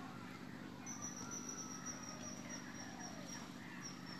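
Faint outdoor ambience with a steady low hum. About a second in, a thin high steady tone begins, dipping slightly in pitch, along with a few faint gliding calls lower down.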